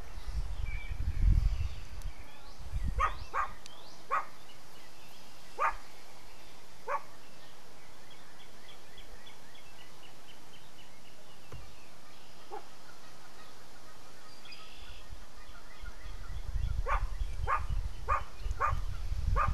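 A dog barking in two bouts: five short, sharp barks spread over a few seconds early on, then a quicker run of five near the end. A low rumble starts up under the second bout.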